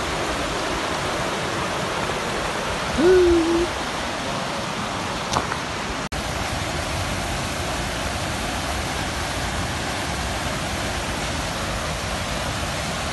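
Fast mountain stream rushing over rocks, a steady hiss of water. About three seconds in, a single short hoot-like note rises and then holds for about half a second.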